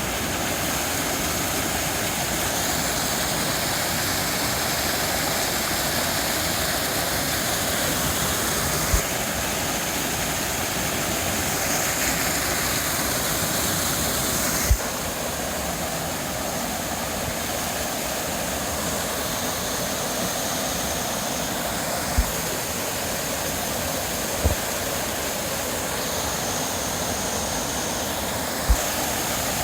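Water rushing steadily down a waterfall, with a few brief low thumps.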